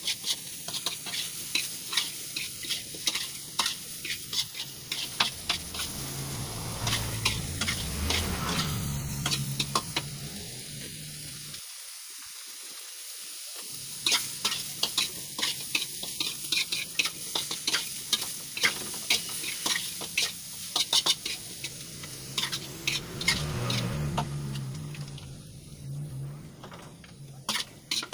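Onion, garlic and sliced mushrooms sizzling in a metal wok while a spatula stirs them, scraping and clacking against the pan many times.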